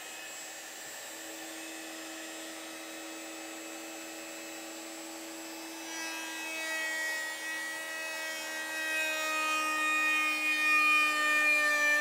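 Electric router running at speed with a steady high whine. About halfway through it gets louder and the whine sags slightly in pitch, as when the bit is loaded cutting wood.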